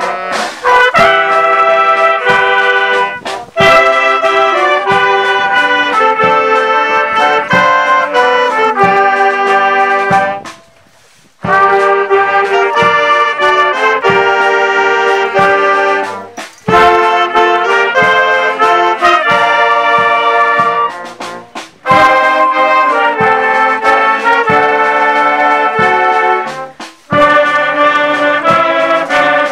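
Brass band playing a slow tune in phrases separated by short breaths, with a pause of about a second near the middle.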